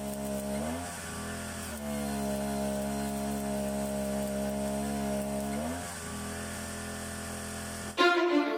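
Small engine running at a steady speed, its pitch rising briefly twice before the note breaks off, then a lower, quieter hum. Music comes in loudly near the end.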